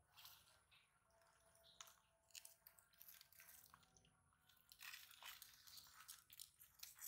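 Sulcata tortoises biting and crunching fresh vegetables: faint, irregular crunches, coming thickest about five seconds in.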